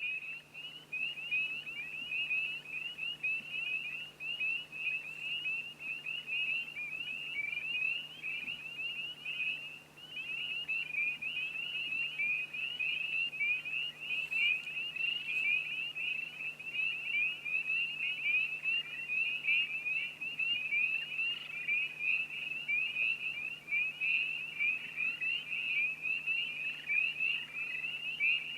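A dense frog chorus: many short, high, rising peeps overlapping without a break, with a steady low hum underneath.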